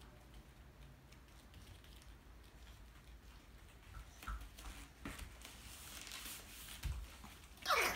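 Faint scattered taps and patter on foam floor mats as a Boston terrier puppy and a toddler move about, with a low thud about seven seconds in. A short, loud, high-pitched cry comes just at the end.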